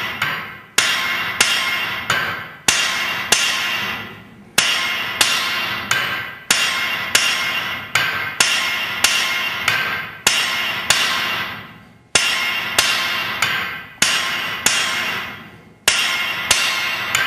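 A hand hammer strikes hot steel on an anvil in a steady rhythm of about two blows a second, with short pauses between runs. Each blow rings. This is a bar being offset over the anvil's edge by hand.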